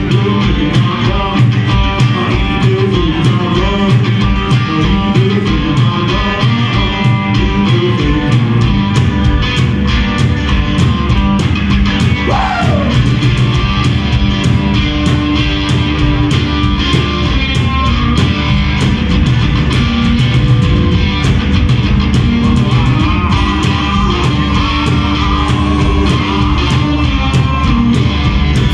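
Live rock-and-roll band playing: two electric guitars over a steady drum beat, with a male singer.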